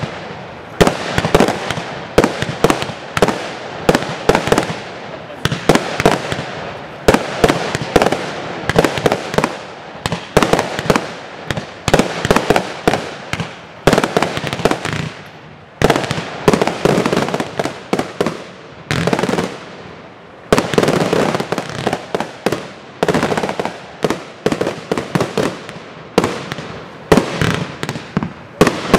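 Aerial fireworks display: shells bursting one after another in rapid succession, several sharp bangs a second, each with a short echo, with a couple of brief lulls.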